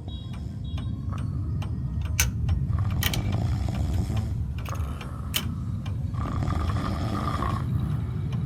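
Steady low rumbling noise with irregular sharp clicks and knocks scattered through it, and a few brief high beeps about half a second in.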